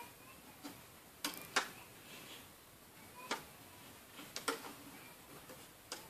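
Rubber bands being stretched and snapped onto the pegs of a clear plastic Wonder Loom, with fingers knocking the plastic: scattered sharp, irregular clicks, a few close together about a second and a half in and again near four and a half seconds.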